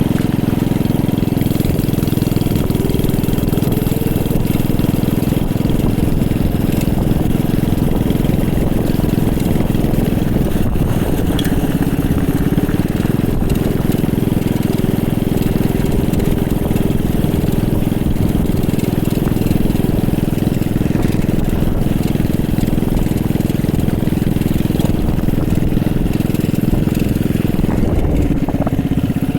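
Small petrol engine taken from a pressure washer, powering a homemade mini bike, running steadily at a nearly constant speed with only slight shifts in pitch.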